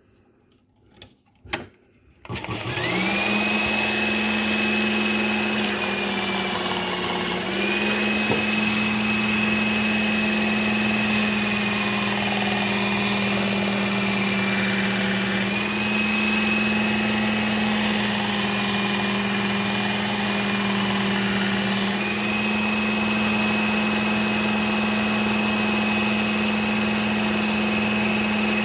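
Work Sharp Ken Onion Edition belt sharpener, running on its fine belt. A few small clicks come first, then the motor starts about two and a half seconds in and runs steadily with a hum and a high whine. The pitch dips briefly a few times as a hatchet edge is worked on the belt.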